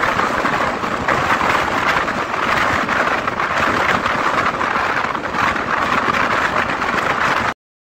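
Steady rush of an LHB passenger coach's wheels and the wind of its passage, heard from the coach's open door while the train runs at speed, with wind buffeting the microphone. It cuts off suddenly near the end.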